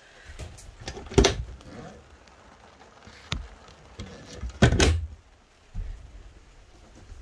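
A handful of sharp knocks and clatters of things being handled inside a small fiberglass Boler trailer, the loudest pair a little past halfway.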